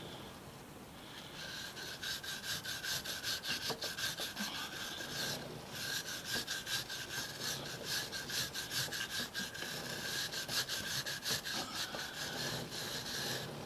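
A stiff chain brush scrubbing a Triumph Street Triple R's cleaner-soaked drive chain in brisk back-and-forth strokes, a few a second, with a short break about five and a half seconds in, loosening the grime.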